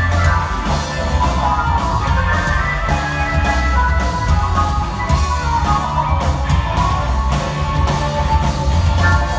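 A rock band playing live on stage, an instrumental passage of keyboards, electric guitars and a drum kit over a steady, heavy bass.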